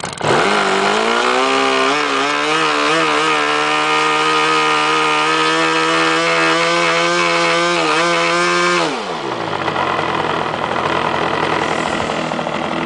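OK Model Commander model engine catching after being hand-started, its pitch climbing quickly to a steady, fast running note that wavers for a moment. About nine seconds in it dies, the note sliding down and stopping.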